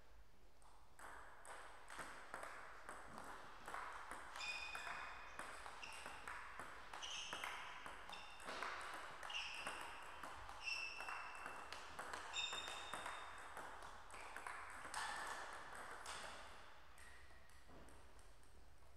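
Celluloid-type table tennis ball being struck by bats and bouncing on the table in a rally: many quick sharp clicks, several with a short high ping as the ball bounces. Quieter stretches between points near the start and the end.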